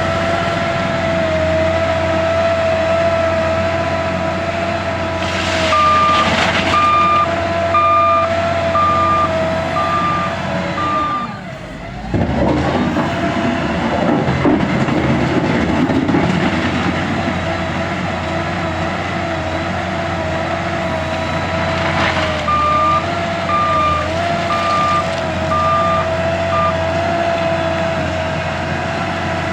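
L&T 9020 wheel loader's diesel engine running steadily, its reversing alarm beeping in two spells, about a third of the way in and again about three quarters of the way in. In the middle the engine note dips briefly, then a rougher, noisier sound lasts a few seconds.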